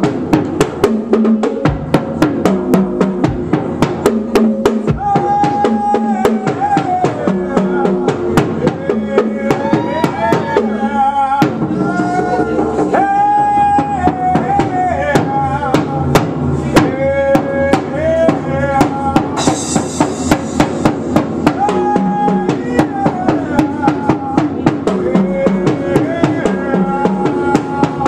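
Live percussion solo: rapid stick strokes on drums and a cymbal, played fast and without a break, with a pitched melodic part sounding alongside.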